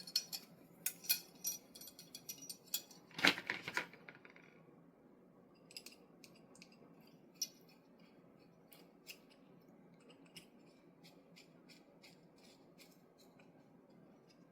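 Light metallic clicks and scrapes as small parts of a Gasser Montenegro revolver are handled and fitted together, with a louder scrape about three seconds in, then only a few faint ticks.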